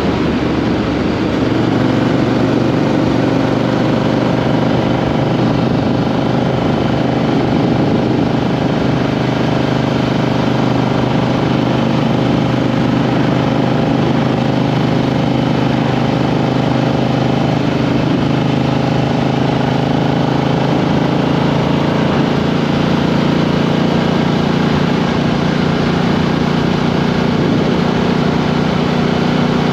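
Triumph Street Twin's 900 cc parallel-twin engine running at a steady, fairly even pitch while riding, picked up by a microphone under the seat, with road and wind noise beneath it.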